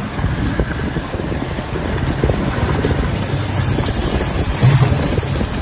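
Motorcycle tricycle under way: the motorcycle engine running, with road noise and wind buffeting the microphone. A short louder surge of the engine comes near the end.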